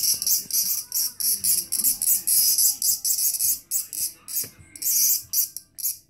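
Cicada held in the fingers giving harsh, high buzzing in quick stop-start bursts: the protest buzz of a captured cicada.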